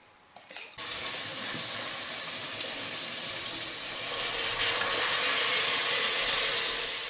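Chicken legs and vegetables sizzling as they roast in the oven, a steady hiss that cuts off suddenly at the end. A couple of faint knocks come just before the sizzling starts.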